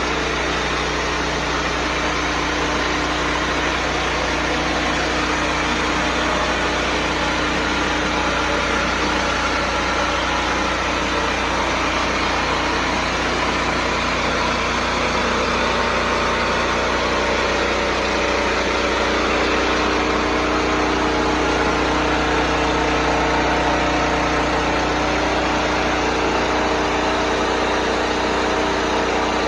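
Pressure washer's engine running steadily at constant speed, with a continuous hiss over it.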